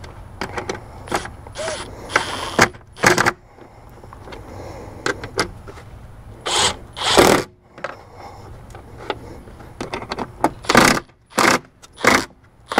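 Milwaukee cordless impact driver run in about half a dozen short bursts, driving bolts down on a Jeep's air intake, with clicks and clatter of the socket and parts in between.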